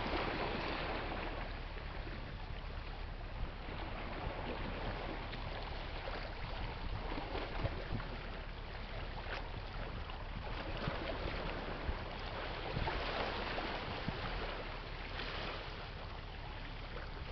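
Outdoor wind noise on the microphone over a steady low rumble, rising and falling a little in strength, with a few faint clicks.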